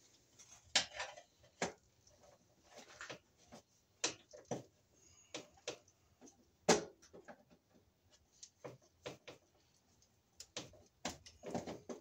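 Irregular metallic clicks and scrapes of a flathead screwdriver and copper wire against a terminal screw inside a breaker panel, the sharpest click about two-thirds of the way through.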